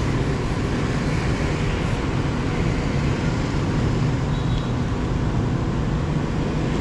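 Steady road traffic noise from passing motorbikes and cars, with a continuous low engine hum underneath.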